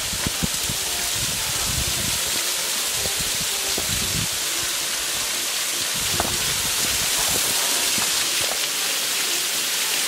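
Steady rushing of water, swollen after a recent storm, with irregular low rumbles that die away near the end and a few faint knocks.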